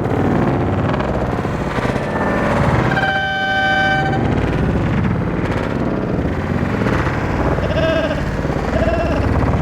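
One air horn blast lasting about a second, a single steady note, over heavy wind buffeting the microphone.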